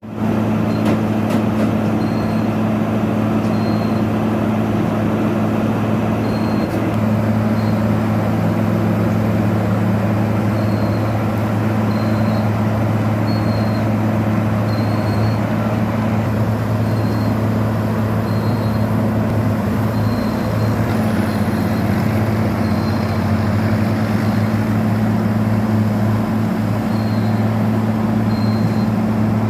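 Asphalt milling machine at work: a heavy diesel engine drone with the noise of the cutting drum, steady and loud throughout. Short high beeps sound now and then.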